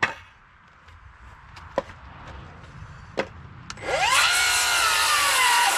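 A few sharp knocks of the board being handled, then a battery-powered circular saw starts about two-thirds of the way in. It spins up with a rising whine that sags as the blade rips lengthwise through a 2x8 board.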